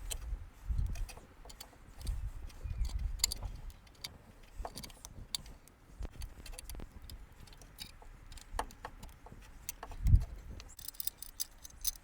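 Scattered light metallic clicks and clinks with a few low handling thumps, the loudest thump about ten seconds in, as a C-clamp is worked on a brake caliper to press the piston back in.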